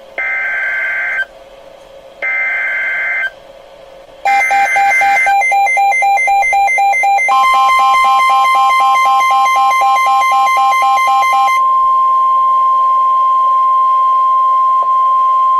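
Emergency alert broadcast tones. Three one-second bursts of warbling digital header data come first, then a rapid beeping alert sound, joined by a long steady warning tone near 1 kHz that carries on alone after the beeping stops.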